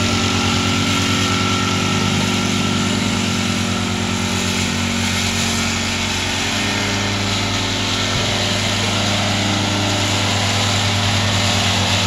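Vibratory plate compactor's small engine running steadily as the plate tamps down wet gravel, a constant hum with a fast, even pulse.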